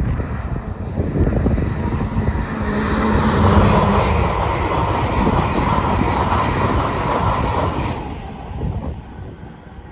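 LNER express passenger train passing at speed, a rushing roar of wheels on rail that builds over the first couple of seconds, is loudest about four seconds in, then fades away by about eight seconds.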